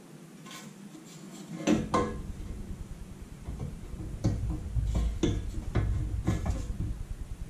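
A polished tri-Y exhaust header clanking and knocking against the engine as it is test-fitted by hand. About ten sharp metallic knocks begin roughly two seconds in, over a low rumble of handling.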